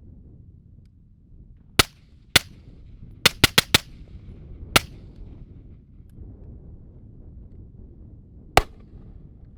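Suppressed 5.56 rifle shots through a KAC NT4 suppressor: two single shots, then a quick run of four, then two more spaced-out single shots.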